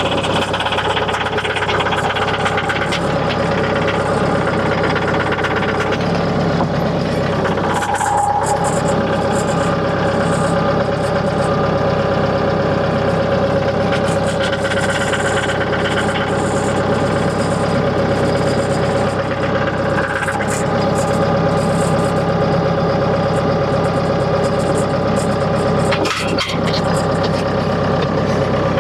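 Mahindra 1533 compact tractor's diesel engine running steadily under load as the front loader carries a load of sawmill slabs.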